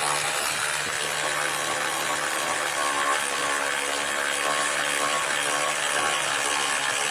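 Cordless electric ratchet running steadily, driving a bolt down with a 13 mm socket on a long extension.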